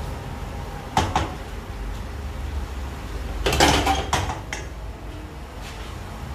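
Cookware being handled: two quick knocks about a second in, then a louder clatter of pots or utensils a few seconds later, over a steady low hum.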